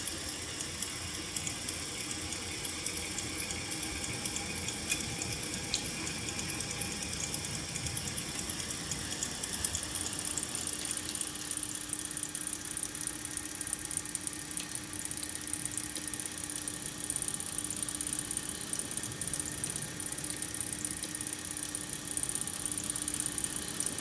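The Ultima Mudfox kinetic sculpture's motors and gear mechanism running: rapid, even ticking over a hiss for about the first ten seconds, then a steadier whirring with a low hum.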